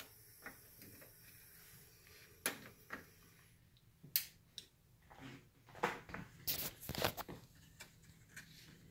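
A few faint, scattered clicks and light knocks, bunched together around two-thirds of the way through, with soft rustling in between: handling noise against quiet room tone.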